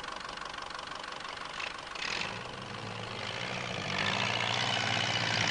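Ferguson TE20 tractor engine running steadily, coming in about two seconds in and slowly growing louder, over the even hiss of an old film soundtrack.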